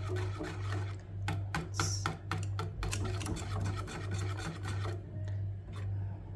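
Wire whisk scraping and clinking against a stainless-steel saucepan as thick chocolate sauce is whisked, in quick repeated strokes that ease off about five seconds in. A low hum pulsing about twice a second runs underneath.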